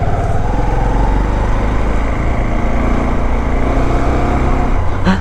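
Honda CB125 motorcycle running steadily at cruising speed, with heavy wind rumble on the camera microphone.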